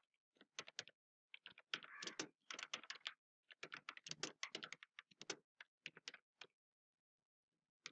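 Typing on a computer keyboard: faint, quick keystrokes in irregular runs, stopping about six and a half seconds in.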